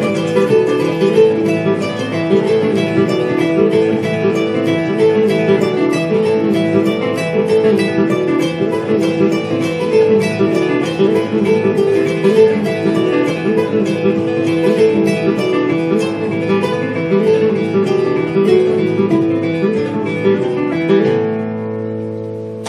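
Kora and acoustic guitar playing an instrumental piece together, quick plucked notes over a steady repeating pattern. Near the end the playing stops and the last notes ring out and fade.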